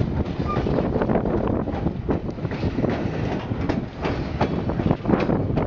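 White Pass railway train running on the track: a steady rumble of the cars with frequent, irregular clicks and knocks of wheels and couplings over the rails.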